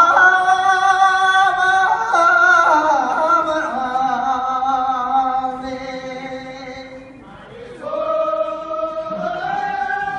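Tibetan song: a voice sings long, drawn-out held notes over music, with a brief drop about seven seconds in before the next held phrase begins.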